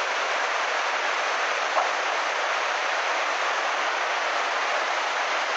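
Flash-flood torrent of muddy water rushing past: a steady, even rush of water, with one brief tick a little under two seconds in.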